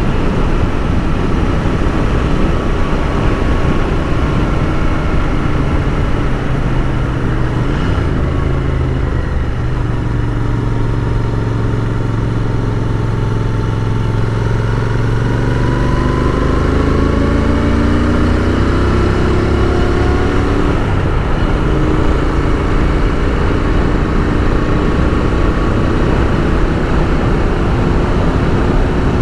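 Royal Enfield Continental GT 650's 648 cc parallel-twin engine pulling under way through its standard, fairly quiet exhaust, over steady wind rush. The engine note climbs in pitch through the middle and drops back at a few gear changes.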